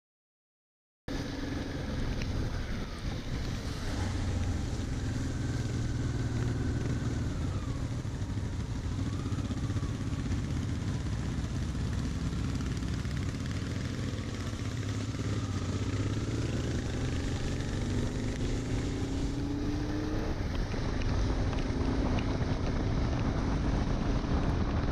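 Motorcycle engine running at road speed, heard from the bike with wind and the hiss of tyres on a wet road; it starts about a second in and the revs rise and fall with the riding, climbing toward the end.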